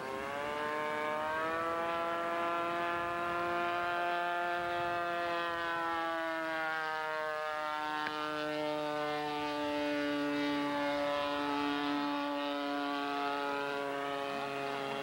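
Radio-control model airplane engine running hard in flight, a steady, high-pitched buzz. Its pitch climbs in the first couple of seconds and drops about seven seconds in.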